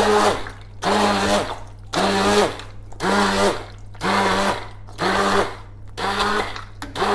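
Electric hand blender switched on and off in short bursts, about once a second, each burst a steady motor whine as the blade chops roasted pumpkin and potato chunks in stock into soup.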